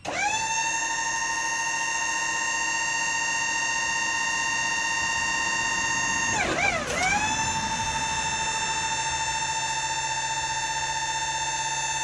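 Hydraulic pump of a Wood-Mizer LT40 Super sawmill whining steadily under load as the log-loader arms are run up and back down. The pitch sags briefly and recovers about halfway through, as the arms change direction.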